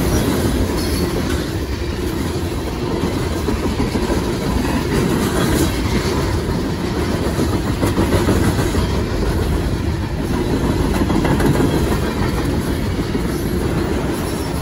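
A freight train's cars rolling past at speed close to the track: a steady rumble of steel wheels on the rails.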